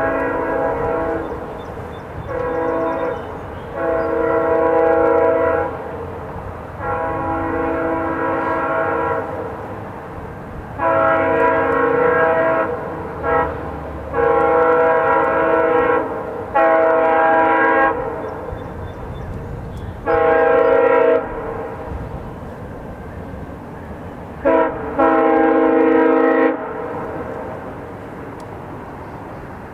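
Air horn of VIA Rail locomotive 917, a GE P42DC, sounding a series of long and short chord blasts as the train approaches. The last blast ends about four seconds before the close, leaving only a steady low rumble.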